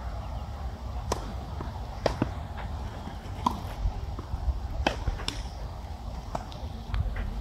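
A tennis rally on a clay court: about seven sharp pops of the ball off the rackets and the court, spaced roughly a second apart, over a steady low rumble.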